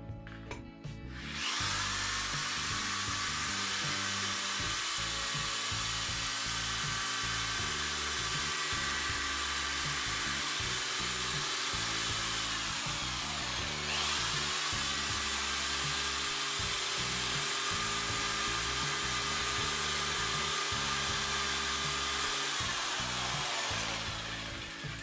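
Electric drill driving a homemade concrete vibrator, a flexible shaft into a steel pipe, run with its tip in a bucket of water. The drill whine spins up about a second in and runs steady, winds down about halfway, then starts again and runs until it winds down near the end.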